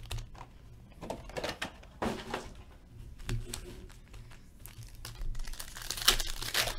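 Crinkling of foil trading-card packs and rustling cardboard as the packs are lifted out of a hobby box. A little after six seconds comes a louder crackling rip as a foil pack is torn open.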